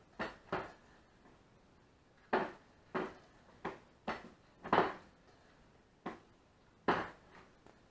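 Hands kneading raw ground beef mixed with egg and breadcrumbs in a metal bowl: a string of about nine short, irregular squishes.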